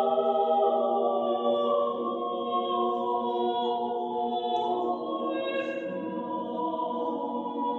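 Vocal choir singing Armenian chant a cappella, holding long sustained notes that step up and down in pitch, inside a stone hall.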